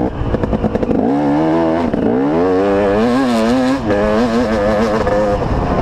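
Motocross bike engine revving hard under acceleration, its pitch climbing in surges with short drops between, holding fairly steady later on and dropping again near the end.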